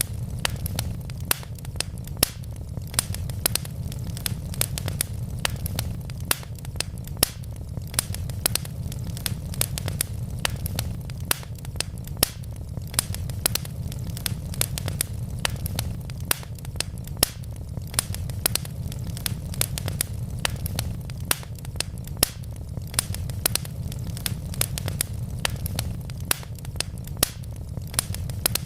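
Wood fire burning in a fireplace: a steady low rumble of flames under a continual scatter of sharp crackles and pops from the burning logs.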